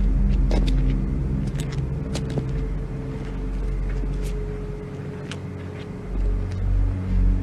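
Low, steady rumbling drone with a faint higher held tone and scattered faint clicks. It eases off through the middle and swells back in low pulses near the end.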